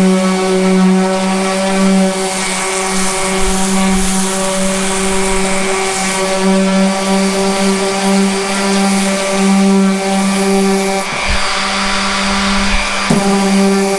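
Harbor Freight 2.8-amp 5-inch random orbital palm sander running at a steady pitch while sanding thick paint with 80-grit paper, with a brief change in the sound about eleven seconds in.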